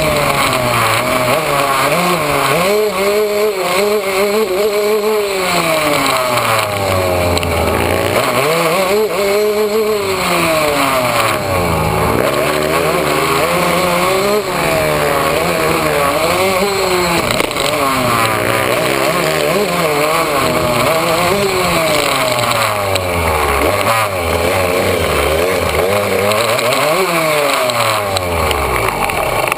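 Yamaha YZ125 two-stroke dirt bike engine, heard from on the bike, revving up and dropping back over and over as the rider works the throttle along the trail.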